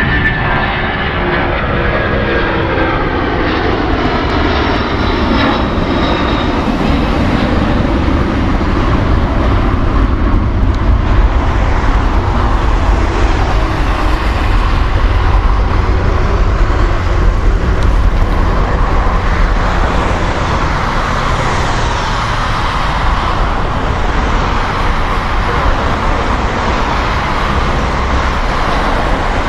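Boeing 747-400's four Rolls-Royce RB211-524G turbofans at full takeoff power as the jet climbs away. Over the first few seconds several whining tones fall in pitch, then a steady, deep rumbling roar carries on.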